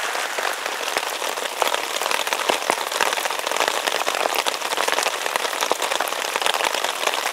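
Steady rain: a dense, even patter of drops striking the tarp and the ground around it.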